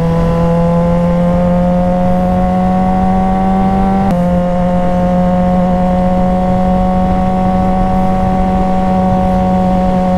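Suzuki GSX-R sportbike's inline-four engine running under way, its note slowly rising for about four seconds, then a click and an abrupt step down in pitch, after which it holds steady.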